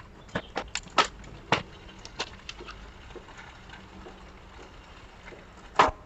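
Bicycle chain clacking as it jumps between the rear sprockets while the wheel spins and the Shimano Tourney rear derailleur is pushed across by hand: several sharp clicks in the first two seconds or so, then one louder clack near the end.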